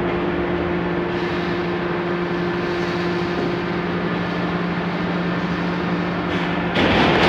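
Cut-to-length steel-plate line running: a steady machine hum with two steady low tones from its electric drive motor and gear reducer. Near the end a sudden, louder burst of noise cuts in over the hum.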